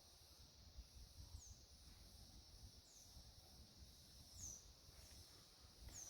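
Near silence, outdoor country ambience: a steady faint high hiss with a short, high, falling chirp from a bird repeated about every second and a half, four times.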